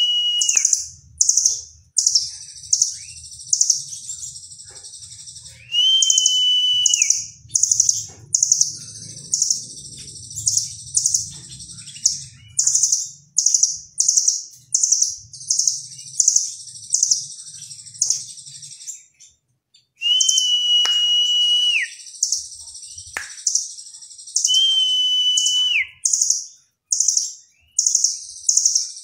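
Blue nuthatch calling: runs of rapid, sharp high notes throughout, broken four times by a longer whistle that holds level and then drops at the end. A low rumble runs underneath for the first two-thirds.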